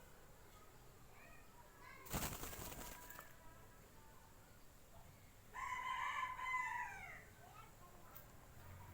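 Aseel rooster beating its wings in a quick flutter of about a second, then crowing once about three seconds later, a short crow that falls in pitch at the end.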